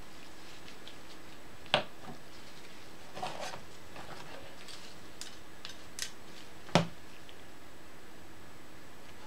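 Small hard tools handled off to the side: two sharp clicks about five seconds apart, a brief scratchy scrape between them and a few faint ticks, over a steady low hiss.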